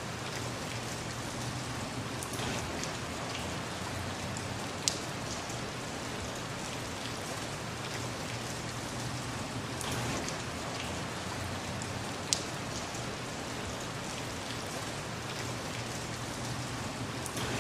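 Rain falling steadily: an even hiss of many drops, with scattered small taps and two sharp louder drop hits, about 5 and 12 seconds in.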